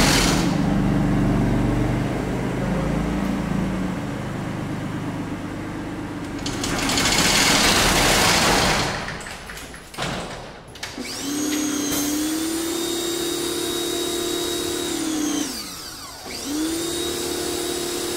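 An electric pressure washer motor runs with a steady whine, winds down about two seconds before the end and starts up again. Before it comes a low rumble, and a loud rushing noise about seven seconds in.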